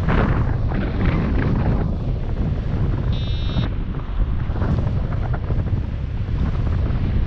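Airflow rushing over the camera microphone of a paraglider in flight, loud and steady. About three seconds in, one short high beep from the flight variometer, its climb signal.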